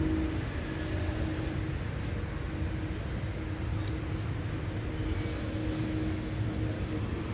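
Steady low background rumble with a faint steady hum, like engines or traffic running, and a few faint ticks.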